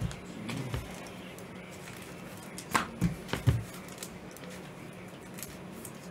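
A few brief rustles and taps, about three around the middle, from gloved hands handling foil trading-card packs and a plastic card sleeve.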